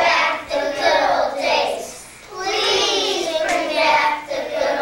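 Young children singing a song, in phrases with a short break about halfway.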